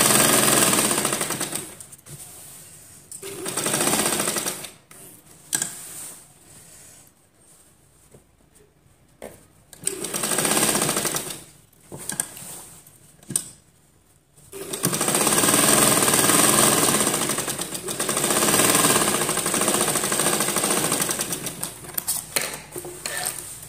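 Domestic straight-stitch sewing machine running in several stretches with pauses between, sewing a seam along a neckline; the longest run lasts from about 15 to 22 seconds in. A few short clicks near the end.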